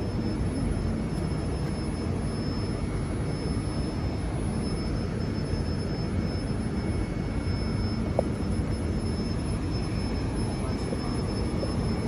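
New Alstom-built Transperth C-series electric railcar standing at the platform, its onboard equipment running with a steady whooshing hum and a faint high steady whine. A small click about eight seconds in.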